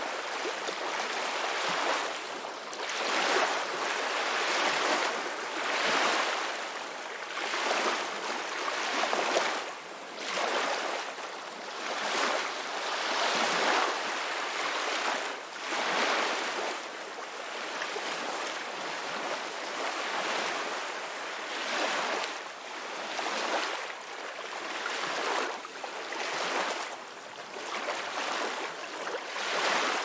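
Ocean waves washing onto a shore, each swell rising and falling away every second or two.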